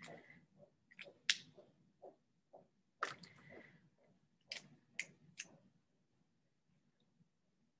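Faint, irregular sharp clicks and taps, about eight in all, the loudest a little over a second in, over faint room noise.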